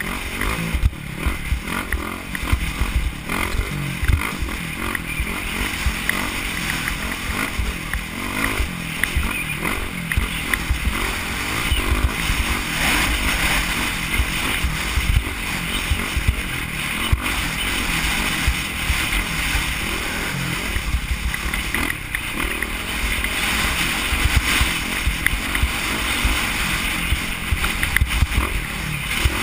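Dirt bike engine running steadily at speed, heard from the rider's helmet, with wind buffeting the microphone in an irregular low rumble.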